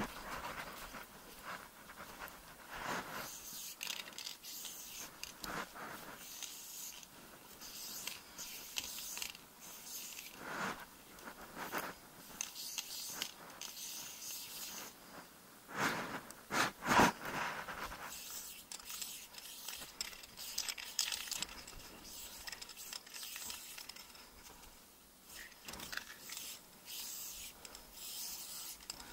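Irregular scraping, crunching and rustling of someone moving over gravel and dry grass with the camera in hand: footsteps, clothing and handling noise. There is a louder cluster of scrapes about halfway through.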